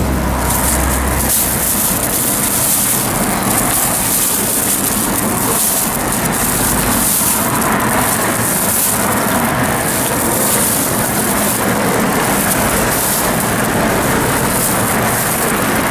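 Thin plastic bag rustling and crinkling steadily, handled close up as sliced blood sausage and offal are scooped into it by gloved hands.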